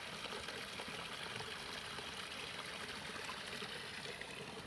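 Running water trickling steadily, an even rushing hiss, easing slightly near the end.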